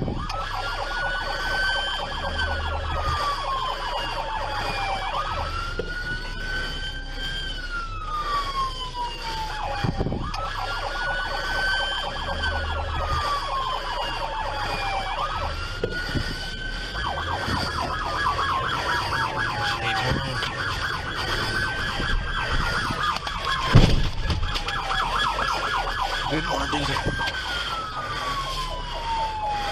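Police car siren wailing, a slow rise and fall repeating about every five seconds. A faster pulsing siren tone overlaps in places, and a single sharp thump comes about 24 seconds in.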